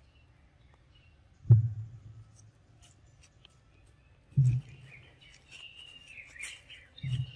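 Three dull, low thumps about three seconds apart, with birds chirping in a wavering run through the second half.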